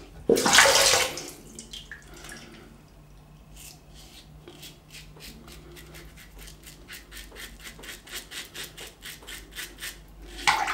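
Wilkinson Sword TTO double-edge safety razor with a Dorco Titan blade scraping lathered stubble under the chin in short, quick strokes, a run of rasps at about four or five a second from a few seconds in. Near the start there is a brief loud rush of noise.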